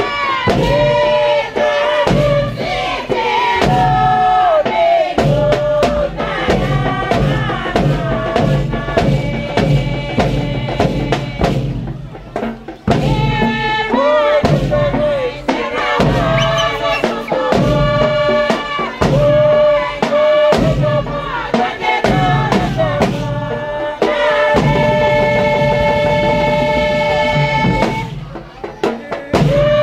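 Torres Strait Islander dance song: group singing over a steady drum beat. It breaks off briefly about halfway through, and near the end the voices hold long notes.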